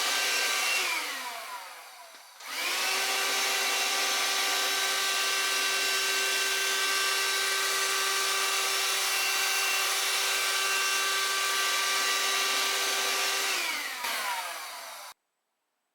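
Parkside PHSSA 20-Li C1 cordless handheld vacuum cleaner running with a steady whine. It is switched off about a second in and winds down, then switched back on and spins up again. It runs steadily for about ten seconds, then is switched off and winds down near the end, and the sound cuts off abruptly.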